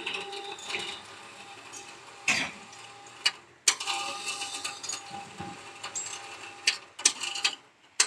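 Building monkey-lift hoist winch paying out its wire rope to lower a loaded barrow: a steady mechanical running tone from the drive, broken by several sharp clanks. It stops briefly about three and a half seconds in and restarts with a clank.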